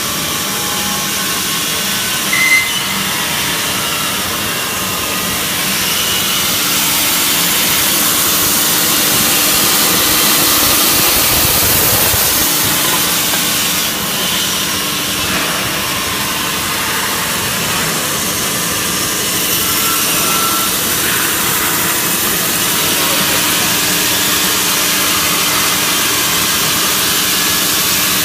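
Horizontal band saw for woodworking running, a steady machine hum under a high hiss that grows louder about six seconds in. A brief sharp sound stands out about two seconds in.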